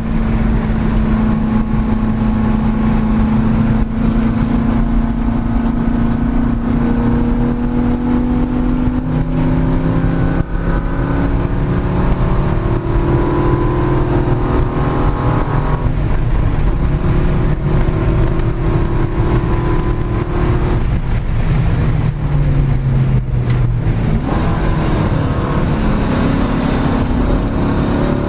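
Car engine heard from inside the cabin while lapping a race track, its note climbing through the revs and dropping several times with gear changes and lifts, over steady road and wind noise.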